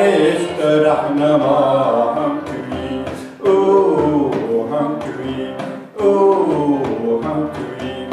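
A man singing a slow, chant-like melody in three long phrases, each starting loud and trailing off, over a steady harmonium drone, with light taps on a frame drum.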